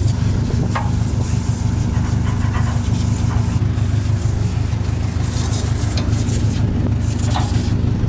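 An engine running steadily, with a couple of sharp metallic clanks as the steel log stops on the sawmill bed are handled.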